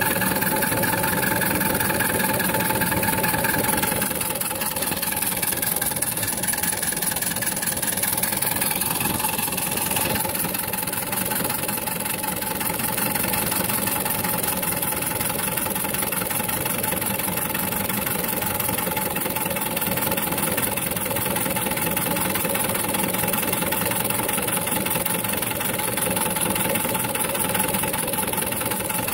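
Live-steam engine of a 1:5 scale model steam lorry running steadily under way, a continuous fast, even beat of exhaust and mechanical clatter.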